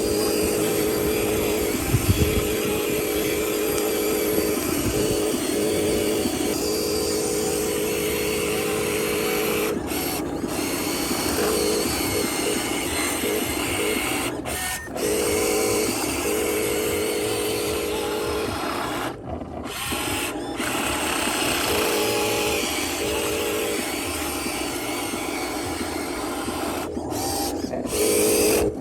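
Small electric motors and gearboxes of radio-controlled construction models whining, starting and stopping in stretches of a few seconds as the machines are worked.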